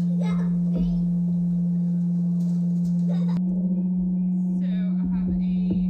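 Vevor electric cream separator running, its motor and spinning centrifuge bowl giving a steady, even hum at one pitch.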